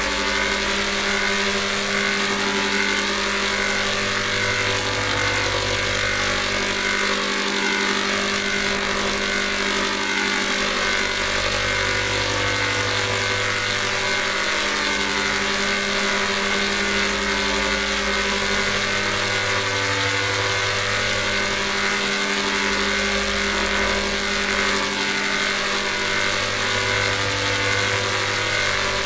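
Heavily processed, layered sound effect: a dense, unbroken drone of many held tones, its low end switching between two pitches every three to four seconds in a repeating cycle.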